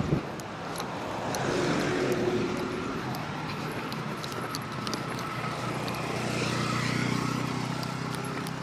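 Road vehicles going past close by, a truck and a motor scooter, their engine and tyre noise swelling twice, the second time with a low engine hum. A short knock right at the start.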